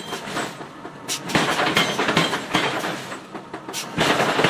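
Hammer blows on hot iron being forged into bar, roughly two to three strikes a second at an uneven pace, over a steady loud noise.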